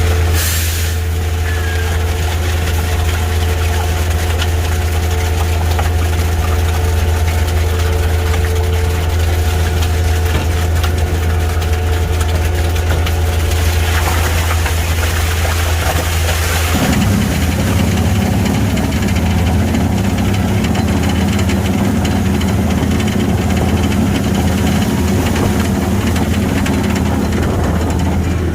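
Heavy diesel truck engine running steadily at a low, even hum. About two-thirds of the way in, after a brief hiss, its note grows heavier and rougher.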